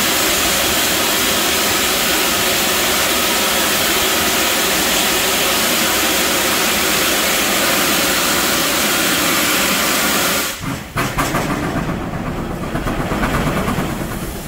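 NSW 3801, a 4-6-2 steam locomotive, hissing loudly and steadily as steam blows out low at the front, most likely from its open cylinder drain cocks. The hiss cuts off suddenly about ten seconds in, giving way to a lower, uneven pulsing of exhaust beats as the locomotive starts to move.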